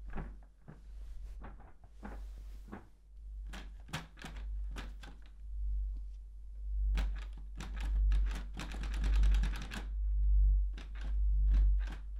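Horror-film sound design: scattered sharp clicks and knocks, then a fast rattling run of clicks about eight seconds in, over a deep pulse that swells and fades about once a second and grows louder toward the end.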